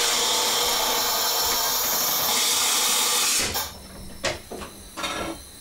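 Compressed air hissing loudly and steadily from the Sgm Sprinter train's pneumatic system, cutting off suddenly about three and a half seconds in. A few light clicks and knocks follow.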